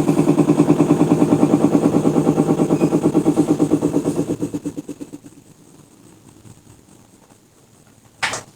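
Sharp ES-T86CL washing machine's drum spinning down at the end of the spin cycle: a fast pulsing hum that dies away about five seconds in. A single sharp click comes near the end.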